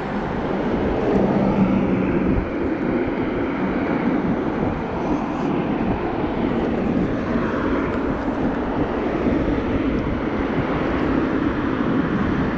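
Mini Crosser mobility scooter driving, its electric drive and tyres making a steady low rumbling drone.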